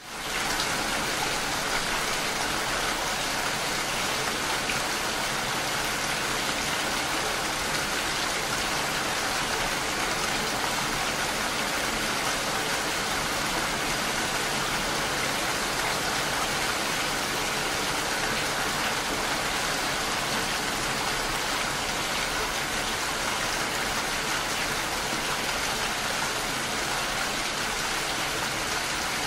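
Steady rain falling, an even, unbroken hiss that comes in quickly at the very start and holds level throughout.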